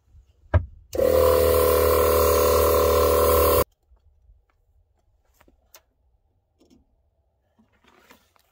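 Portable 12-volt air compressor switched on with a click, running steadily for under three seconds while inflating an air mattress, then cutting off suddenly. Faint rustling of fabric follows.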